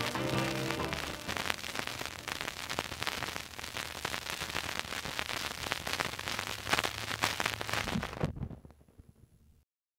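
The last notes of the song on a vinyl 45 fade out about a second in, leaving the record's surface noise: steady hiss and crackle with sharp clicks from the stylus in the groove. The noise drops away sharply after about eight seconds and cuts off to dead silence just before the end.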